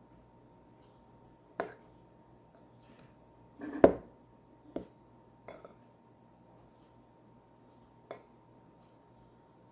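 Spoon and plate clinking during a meal of rice: five scattered sharp clinks, the loudest a heavier knock about four seconds in.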